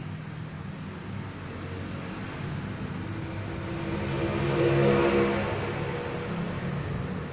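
A motor vehicle passing by, growing louder to a peak about five seconds in and then fading, over a steady low hum.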